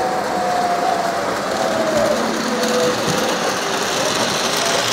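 Electric model train running on its track: a steady motor whir and rolling wheel noise, with a faint tone wavering up and down in pitch over it.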